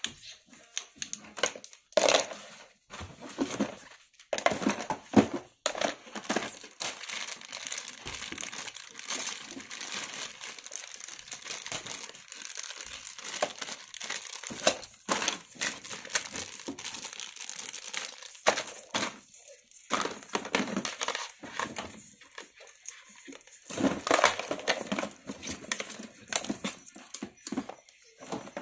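Thin plastic packaging crinkling and rustling as toy doctor-kit pieces in a clear bag are handled, with hard plastic toy parts knocking against a plastic case now and then.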